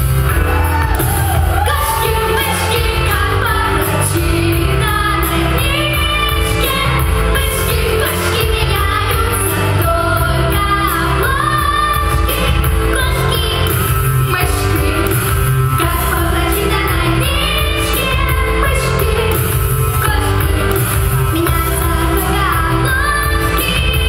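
Two children, a girl and a boy, singing a lively pop duet into microphones over a loud recorded backing track with a steady beat.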